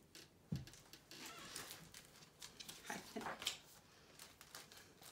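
Faint sounds of a chocolate Labrador moving about on a wooden floor, with a few light clicks and rustles and a soft thump about half a second in.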